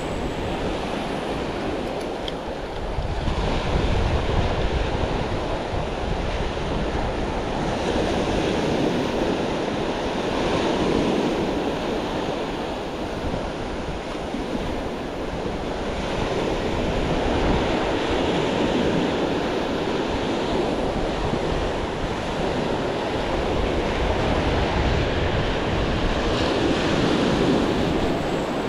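Surf washing in over a sandy beach, a steady rush that swells and eases as each wave comes in, with wind rumbling on the microphone.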